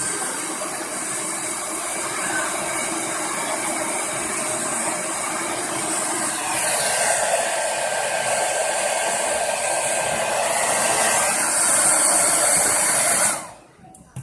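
Hair dryer blowing hot air into a computer to heat its motherboard, a makeshift reflow of a PC that won't power on. It runs steadily, its sound shifts about halfway through, and it switches off abruptly near the end.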